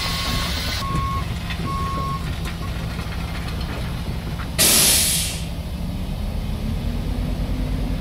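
Heavy diesel truck running, its backup alarm beeping about once a second for the first couple of seconds, then a loud short burst of air hiss from the air brakes about halfway through. The engine then picks up slightly in pitch.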